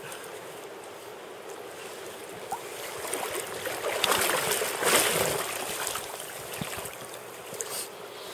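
Shallow river running steadily over stones, with a stretch of splashing and water sloshing in the middle as a steelhead is handled and lifted out of the water, loudest just after the middle.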